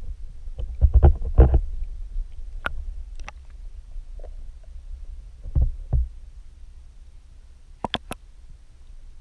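Knocks, thumps and sharp clicks on a GoPro Hero 4's underwater housing as the camera is bumped and jostled, over a low underwater rumble. The loudest knocks come in a cluster in the first second and a half, with two thumps about six seconds in and two sharp clicks near the end.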